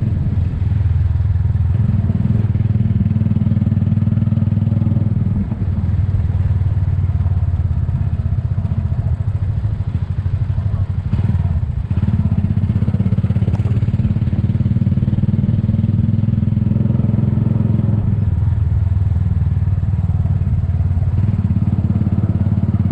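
Motorcycle engine running under way, heard from the rider's seat as a steady low drone that dips briefly about five seconds in, again around twelve seconds and near eighteen seconds.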